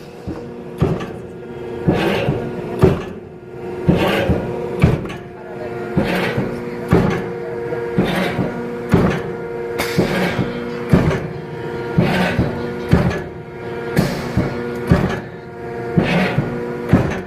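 CNC traveling-head hydraulic clicker press die-cutting leather. A steady machine hum with a few fixed tones runs under a sharp cutting-stroke knock about once a second.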